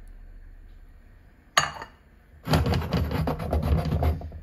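A bowl is set down with one sharp knock on a stone countertop about a second and a half in. Then comes nearly two seconds of close clattering and rubbing.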